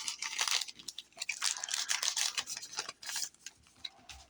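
Cardboard trading cards being handled and slid against one another, a scratchy rustle with small clicks that dies away about three seconds in.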